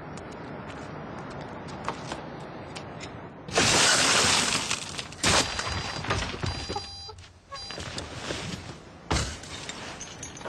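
Glass shattering in a loud crash about three and a half seconds in, followed by a couple of sharp knocks.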